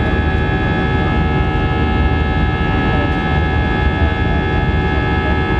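Airbus A319 jet engines at high thrust during takeoff, heard inside the cabin: a loud, steady noise with several steady whining tones over a low rumble.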